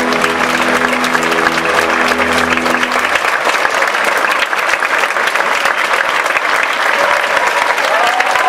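Audience applauding as the music's final held chord ends about three seconds in; the clapping then carries on alone.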